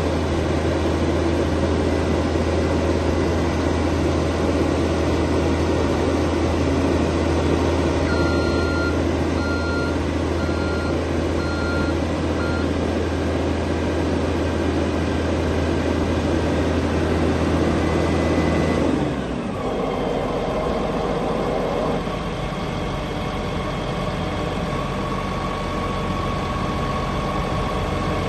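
Diesel engine of a CAT PM-102K asphalt milling machine running steadily at high revs. About six short warning beeps sound in a row a third of the way in. About two-thirds of the way in, the engine revs glide down and it settles into a lower idle.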